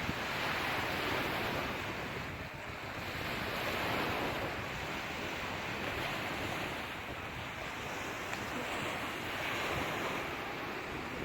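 Sea surf: waves washing in a continuous rush that swells and eases slowly.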